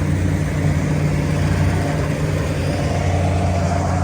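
Heavy farm machinery's diesel engine running steadily with a deep hum, as a tractor and combine harvester struggle with a load bogged in a muddy rice field.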